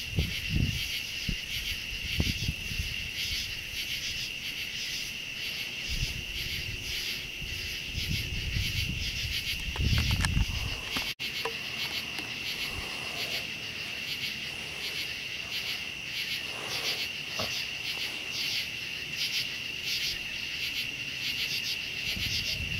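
Night chorus of crickets and other singing insects: a steady high trill with an even, rapid pulsing over it. A brief low rumble comes about ten seconds in.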